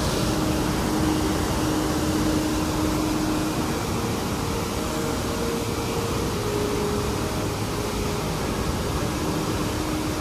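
Floodwater rushing through an open barrage gate: a loud, steady rush of churning white water, with a faint steady hum underneath.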